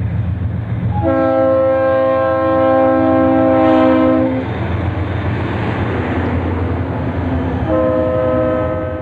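Diesel locomotive air horn sounding a chord over the low rumble of the train: one long blast starting about a second in and lasting about three seconds, then a second blast near the end.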